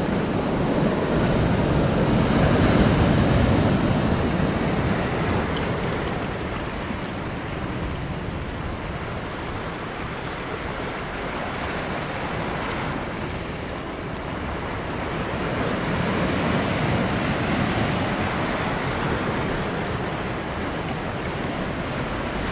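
Sea surf breaking and washing over shoreline rocks: a steady rush that swells louder in the first few seconds and again a little past the middle.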